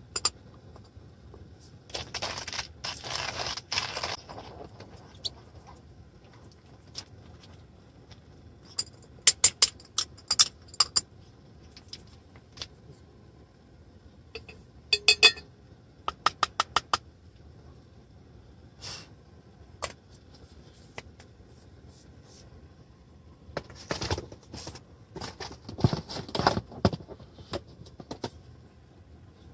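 Small objects being handled: scattered clinks, clicks and rustling, with a quick run of about five sharp clicks about sixteen seconds in and a longer stretch of rustling and clatter near the end.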